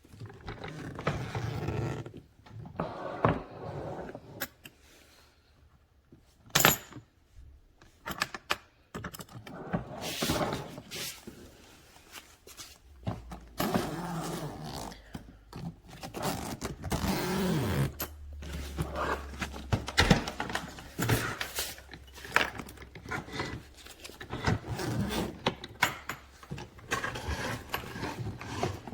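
Irregular knocks, scrapes and rustling of objects being handled, with a steady low hum for several seconds in the middle.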